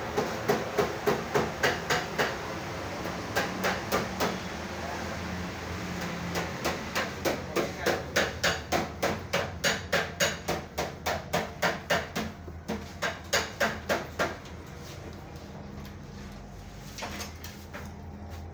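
Repeated sharp knocking in runs of evenly spaced strikes, about three a second, with short pauses between runs; it stops about fourteen seconds in.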